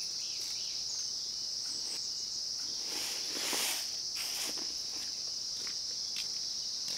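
Steady high-pitched chirring of insects, unbroken throughout, with a brief rustling swell about three and a half seconds in.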